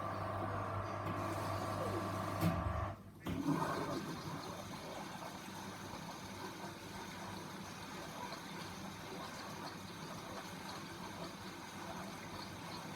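Grundig washing machine: the steady motor hum stops with a knock about three seconds in, and water then runs and rushes through the machine.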